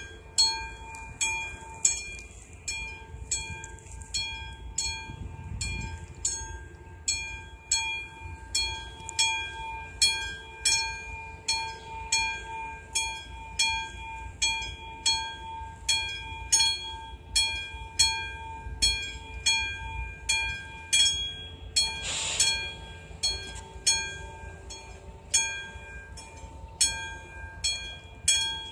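Railway level-crossing warning bell ringing, a steady, evenly repeating series of ringing strikes. It signals that a train is approaching the crossing.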